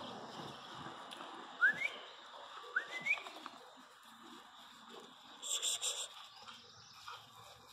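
Two short rising whistles, about a second apart. Near the end comes a brief, high, scratchy hiss.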